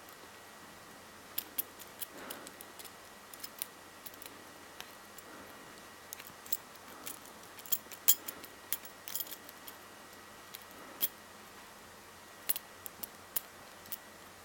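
Small, irregular metallic clicks and scrapes of a half-diamond lock pick working the pins of a padlock held under tension by a tension wrench.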